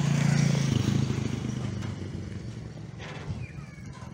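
Engine running with a steady low hum, loudest in the first second and then settling to a quieter, even drone.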